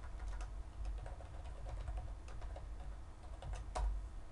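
Typing on a computer keyboard: a run of quick key clicks, with one sharper click near the end, over a low steady hum.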